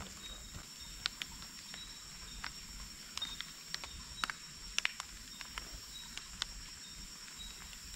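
Tropical forest ambience: a steady high insect drone with short repeated high chirps, and scattered irregular sharp clicks and crackles, a few louder ones about halfway through.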